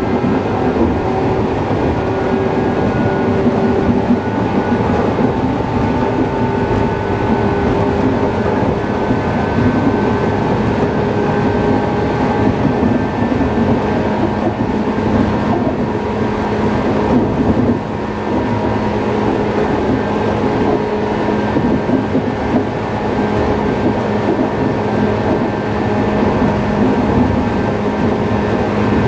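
Running sound inside a JR East 113 series electric train's motor car: traction motor and gear whine holding a steady pitch over the rumble of wheels on rail, the train cruising at an even speed. The car has a flat spot on a wheel, which beats once per wheel turn under the noise.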